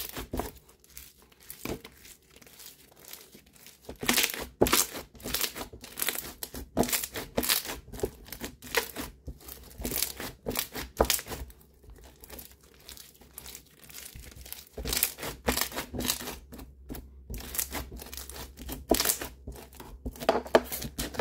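A full bead slime packed with marshmallow and foam beads being squeezed and kneaded by hand, giving a dense, irregular run of crunchy crackles and pops as the beads are pressed.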